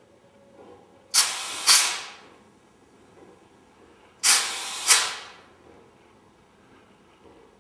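Handheld compressed-air gun on a hose giving two short blasts of hissing air, each under a second long and about three seconds apart, each starting and ending abruptly.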